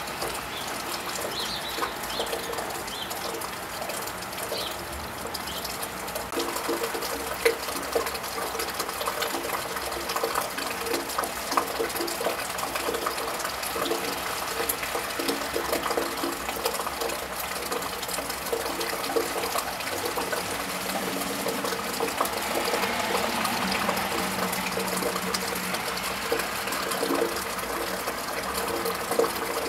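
Steady rain on a wet tiled roof, with many small drips and water trickling from the gutter. About two-thirds of the way through, a passing car's tyres hiss on the wet road, rising and then fading.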